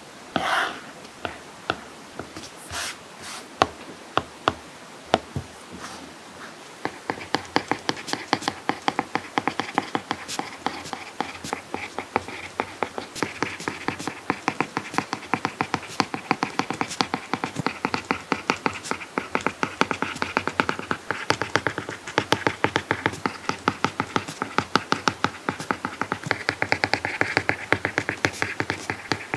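Apple Pencil tip tapping and scratching on an iPad Pro screen fitted with a paper-like matte protector. A few separate taps in the first seconds, then from about seven seconds in a dense, quick run of ticks and scratches as it writes by hand.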